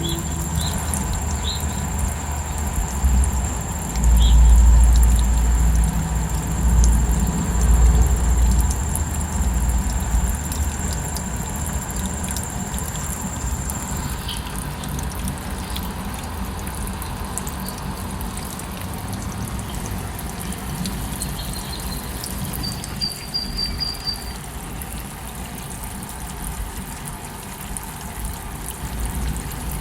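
Falling water running steadily, with a high steady cricket trill through the first half and a few short bird chirps about three-quarters of the way in. A deep low rumble swells in and out in the first third.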